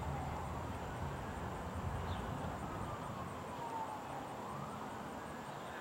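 A wailing siren, its single tone slowly rising and falling in pitch, over a low background rumble.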